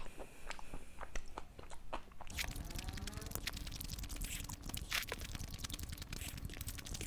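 Close-miked chewing of a mouthful of saucy pasta, with wet mouth smacks and clicks, and a metal fork scraping in a foil takeaway tray partway through.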